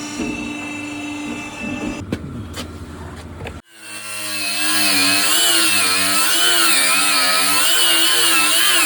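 A few knocks, then from about four seconds in a loud power tool runs steadily, its pitch wavering up and down as the load changes. The tool is at work on the body-mount and chassis repair.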